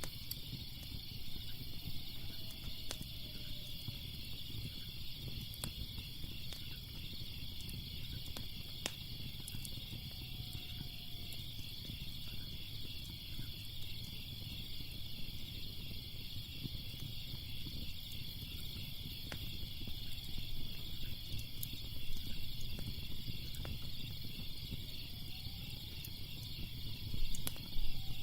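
Steady chorus of chirping crickets over a low fire rumble, with scattered sharp crackles and pops from burning wood.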